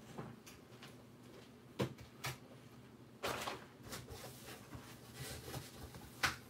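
A few faint clicks and knocks, with a short rustle about three seconds in, over a low steady hum.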